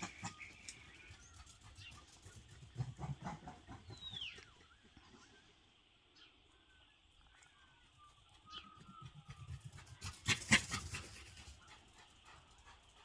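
Small birds chirping and twittering faintly as they settle into trees to roost, with one clear falling whistled call about four seconds in. A brief loud rustle comes about ten seconds in.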